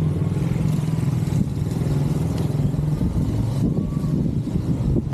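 A motor vehicle's engine running with a steady hum that weakens a little about three and a half seconds in.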